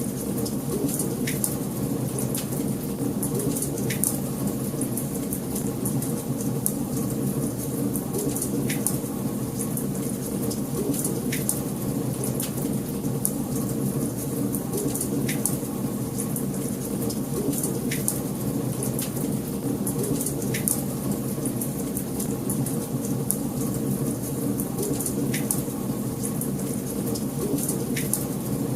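Wood fire crackling in a fireplace: a steady low rush of flames with frequent sharp crackles and pops scattered throughout.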